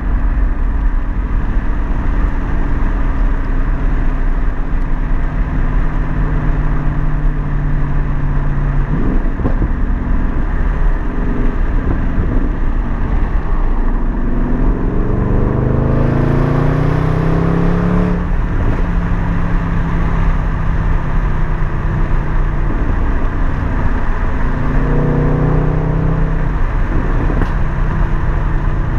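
Jaguar XF engine through a muffler-deleted exhaust, heard from inside the cabin while driving. Its note is steady at first, then climbs for a few seconds about halfway through and drops sharply, then climbs and drops again briefly near the end, over a constant low road rumble.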